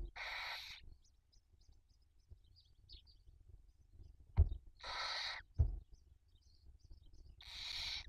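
Barn owls in the nest box giving three short hissing calls, near the start, about five seconds in and at the end, with faint high peeps between. Two dull thumps sound just before and just after the middle call.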